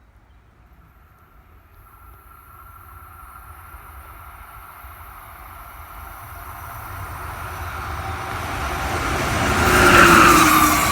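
Amtrak passenger train hauled by an ACS-64 electric locomotive approaching at speed. Its rumble and rail noise grow steadily louder and peak about ten seconds in as the train reaches and rushes past.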